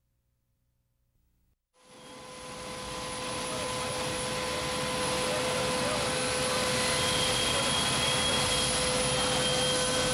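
Jet airliner engines running on the ground: a steady rush with a high whine running through it, swelling in from silence about two seconds in.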